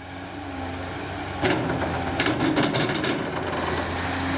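A steady low engine hum fades in. About a second and a half in comes a loud hiss, then a string of short hisses over the next second and a half.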